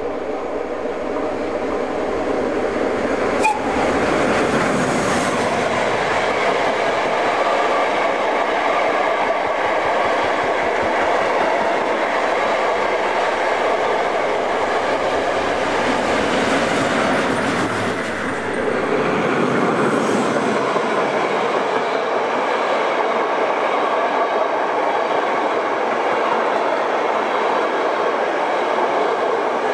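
Train running on the rails: a steady clatter of wheels on track that swells over the first few seconds, with one sharp click about three and a half seconds in.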